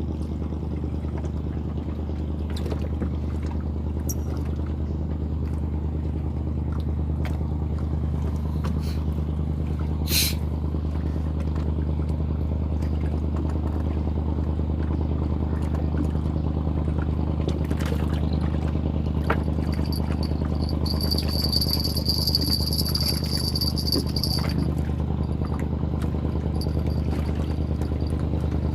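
Small engine running steadily at an even speed, a constant low hum. A high thin tone comes in for a few seconds after about twenty seconds.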